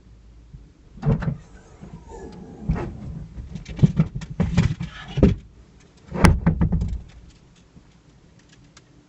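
A series of sharp clunks and knocks, about six over five seconds, the loudest about six seconds in, followed by faint ticks.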